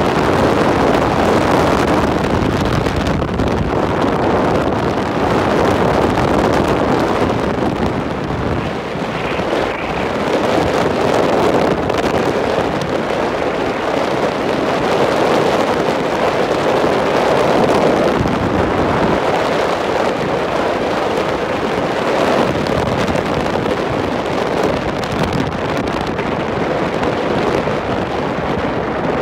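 Wind buffeting the microphone of a moving bike, over a steady drone of vehicle and road noise.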